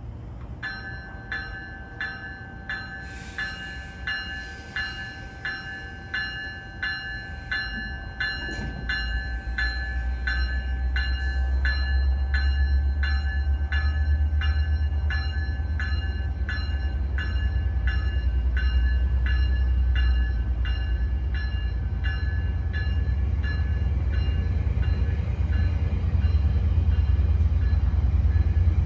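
Train bell ringing about twice a second as a GO Transit bilevel train pulls out, fading near the end. Under it, a low rumble from the F59PH diesel locomotive and the moving train builds from about eight seconds in.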